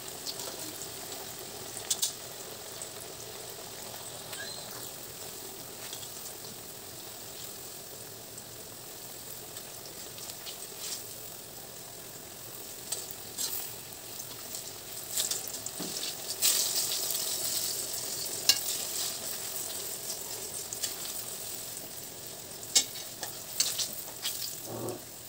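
Banana slices frying in hot oil in an aluminium wok, a steady sizzle. Steel tongs click against the pan now and then as the slices are turned and lifted out. The sizzle swells for a few seconds past the middle.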